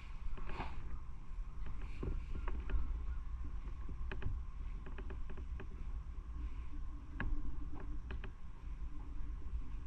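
Motorcycle riding with a steady low rumble of engine and wind on the microphone, and scattered light clicks or ticks.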